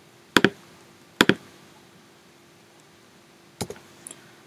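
A few sharp clicks of a computer's mouse and keyboard as a command is copied and pasted into a terminal. There are two doubled clicks about half a second and a second and a quarter in, then two lighter clicks near the end.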